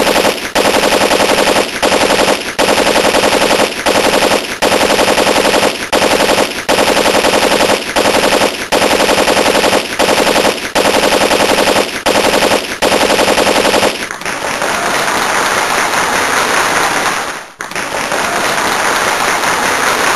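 Sustained rapid machine-gun fire in long bursts, broken by brief pauses nearly a second apart. After about 14 s the sound turns into a steady loud rushing noise, with a short drop near 17.5 s.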